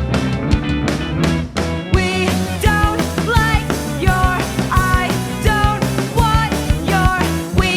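Grunge/punk rock band playing: drum kit, distorted guitars and bass, with a wavering melody line coming in over them about two seconds in.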